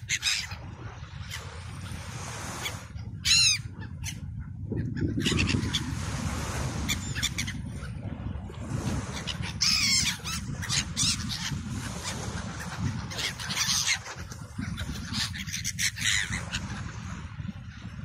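A flock of gulls calling: short, wavering cries repeated every few seconds, the loudest about three seconds in and again near ten seconds, over a steady low rumble.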